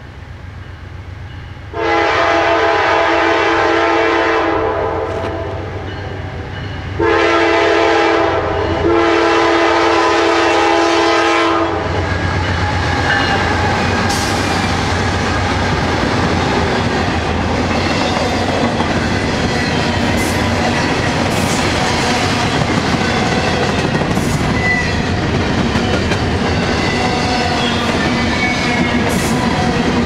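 Lead GE C44-9W locomotive's horn sounding long blasts for about ten seconds as the train approaches a grade crossing. The locomotives' diesel engines and wheels then go by, followed by the steady rumble and clickety-clack of double-stack intermodal well cars rolling past.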